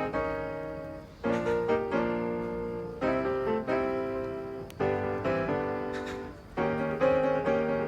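Background piano music: gentle phrases of sustained chords that fade and are struck again every second or two.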